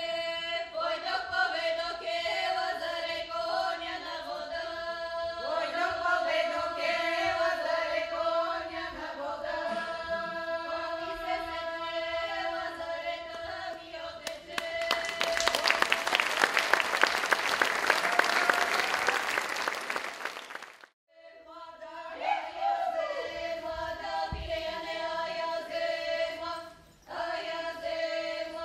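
Bulgarian women's folk choir singing in the Shop drone style, voices holding a steady drone under the melody. About halfway through, a loud stretch of even noise lasting about six seconds drowns the singing and cuts off suddenly, then the singing resumes.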